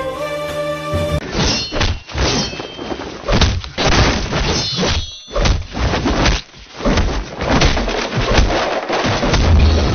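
Fight sound effects from a film soundtrack: a fast, irregular run of heavy blows, thuds and crashes, with music underneath. It cuts in abruptly about a second in, replacing string music.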